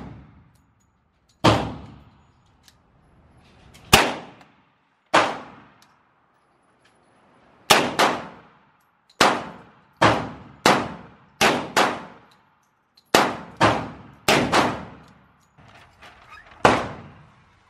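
A 10mm Glock 40 pistol fired about fifteen times at an uneven pace, singly and in quick pairs, each shot a sharp crack with a short echoing tail.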